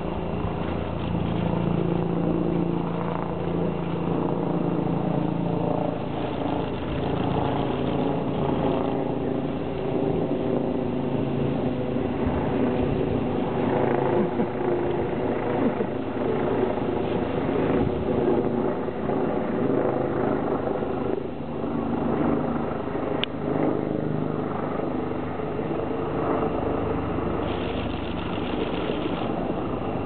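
A steady engine-like hum with a low drone.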